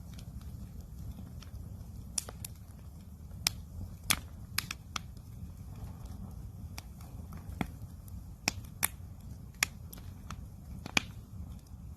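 Wood campfire crackling: irregular sharp pops and snaps, a dozen or so standing out, over a steady low rumble.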